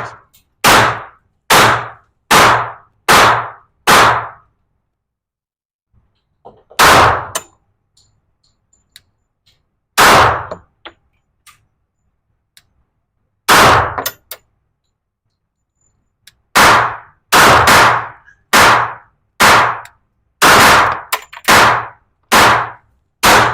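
Pistol gunshots at a shooting range, including shots from a Glock 21SF .45 ACP, about twenty in all. A quick string of about five comes in the first four seconds, then three single shots spaced a few seconds apart, then a fast run of about ten from past the middle to the end.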